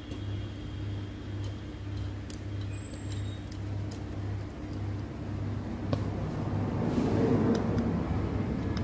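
Low, steady mechanical hum that beats in slow, even pulses, with a few light metallic clicks of hand tools; a swell of louder noise about seven seconds in.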